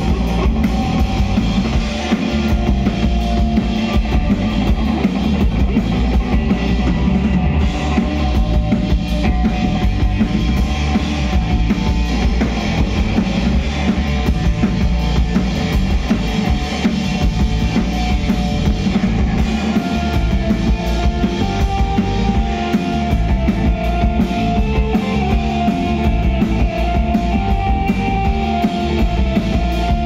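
Live rock trio playing an instrumental passage: drum kit with a steady kick drum, electric bass and electric guitar.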